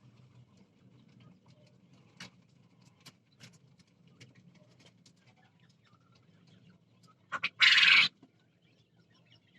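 Jumbo quail in their pen: faint scattered clicks over a steady low hum, then near the end a loud, harsh call of two short notes and a half-second burst.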